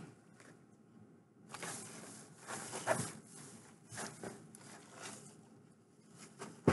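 Rustling and handling of packaging in irregular bursts for a few seconds, starting about a second and a half in, with a sharp knock near the end.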